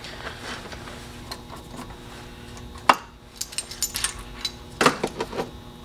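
Steel transmission parts clinking and tapping as the gear puller and the just-loosened reverse gear are worked off the shaft of a Yanmar KM2-A gearbox. A sharp metal clink comes about three seconds in, then a quick run of lighter clinks and taps, and another loud clink near the end.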